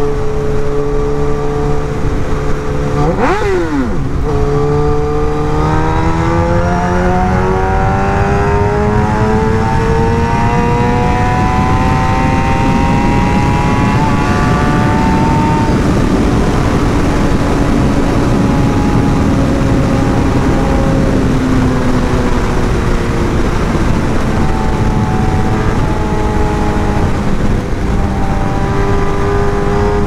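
Suzuki GSX-R1000's inline-four engine heard from onboard at highway speed under heavy wind noise. About three seconds in the engine pitch dips sharply and recovers, then climbs slowly and steadily as the bike pulls hard in a high gear. Through the middle the wind rush drowns the engine, and near the end the revs rise again.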